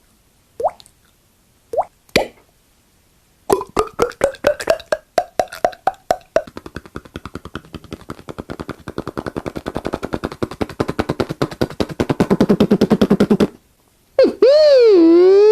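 A man making sound effects with his mouth. First come a few short, wet pops like water drops, then a long run of rapid pulses that speeds up into a fast rattle and drops in pitch toward the end. Near the end a loud siren imitation starts, a tone that dips and then rises.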